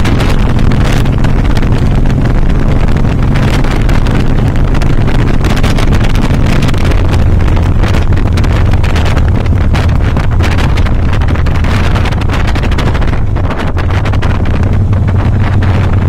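2007 Harley-Davidson Softail Custom's Twin Cam 96 V-twin engine running under way, with heavy wind buffeting on the microphone. The engine note drops about halfway through as the bike eases off.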